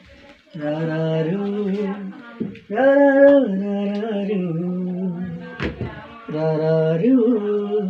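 A man's voice singing a slow lullaby tune in long held notes, with a short gap between phrases. A single sharp click sounds about five and a half seconds in.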